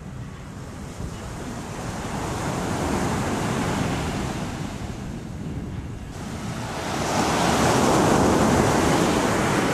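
Surf breaking on a sandy beach: one wave swells and washes in, eases off, then a second, louder wave breaks about seven seconds in.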